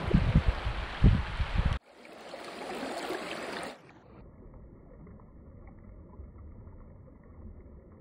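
Running stream water with rough wind rumble on the microphone for the first couple of seconds, cut off abruptly. Then water close by as a hand holds a brown trout in the shallows, fading after about four seconds to a faint, dull, muffled water sound.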